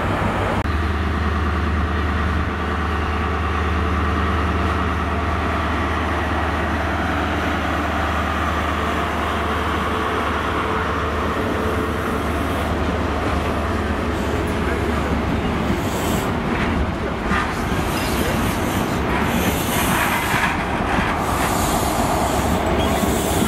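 First Great Western HST (InterCity 125) moving along the platform: steady diesel engine drone with the wheel and rail noise of its Mark 3 coaches, the high rail noise growing over the last several seconds as the rear Class 43 power car draws near.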